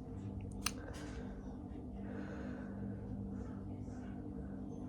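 A steady low hum with faint breathing, and a single light click about two-thirds of a second in.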